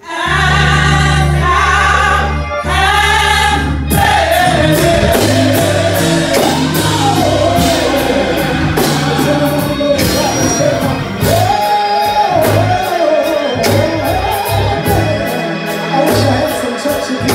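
Gospel choir singing held chords over sustained keyboard bass notes. About four seconds in, the band comes in with bass and drums under a single winding lead vocal line.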